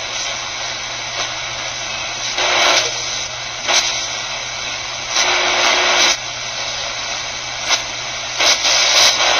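Shortwave static from a QFX R-14 portable radio's speaker tuned on the 31 metre band: a steady loud hiss that swells into louder bursts of noise about five times. No station comes through, only noise.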